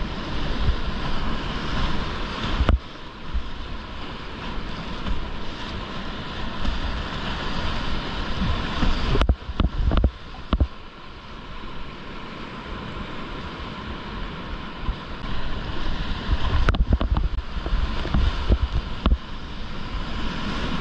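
Whitewater rapids rushing and splashing close to the microphone, with heavy low buffeting on it. Sharp knocks come about three seconds in, a cluster around nine to ten seconds, and again near seventeen and nineteen seconds.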